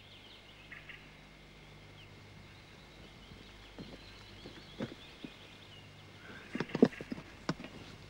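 Wooden wheelbarrow knocking and clunking as it is wheeled and handled: a few scattered knocks, the loudest cluster about seven seconds in, over a steady low hum.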